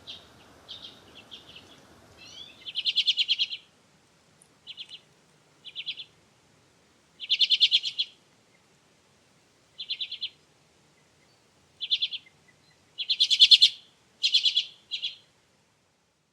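Common redpoll calling: about ten short, rapid trills of chattering notes, spaced a second or two apart.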